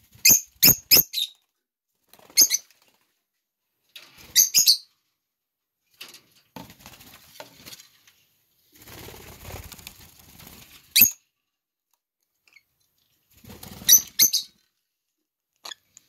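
Peach-faced lovebirds giving short, shrill chirps in quick clusters of two or three, about five times. Softer rustling and handling noise fills a stretch in the middle.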